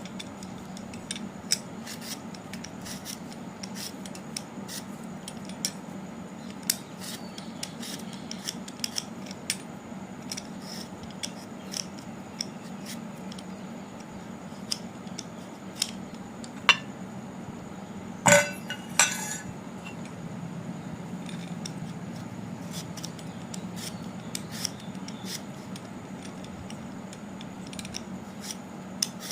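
Kitchen utensils clicking and scraping in short, irregular strokes during food preparation. Two louder clatters come about two-thirds of the way through, over a steady low hum.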